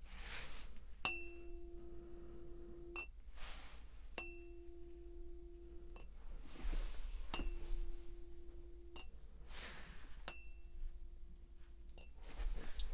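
Tuning fork struck four times, about three seconds apart. Each strike gives a brief high ping and then a steady low hum that rings for about two seconds before being cut off sharply. Soft rustling whooshes come between the strikes.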